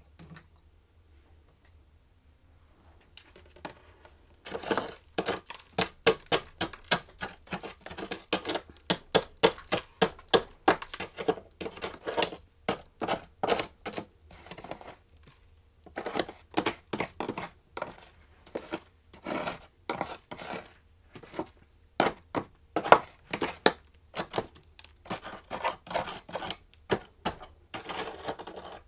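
A person chewing freezer frost close to the microphone: rapid, crisp crunching, starting about four seconds in and running in bursts with short pauses.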